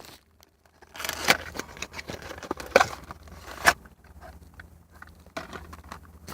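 Plastic packaging of USB charge cords crinkling and tearing as it is handled and opened, with sharp crackles about a second, three seconds and nearly four seconds in.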